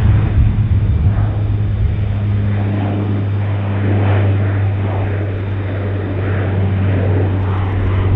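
KC-130J Super Hercules's four turboprop engines with six-blade propellers, loud as the aircraft climbs out after takeoff. A steady, deep propeller drone sits under a wavering rush of engine and air noise.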